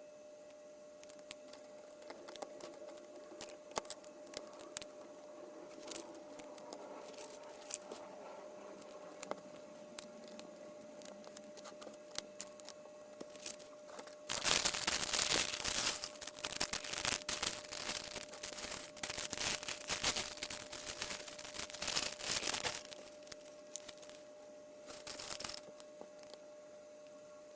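Scattered small clicks of LEGO pieces being handled. About halfway through comes some eight seconds of dense crinkling and tearing, like a plastic parts bag being torn open and rummaged, with a shorter crinkle near the end.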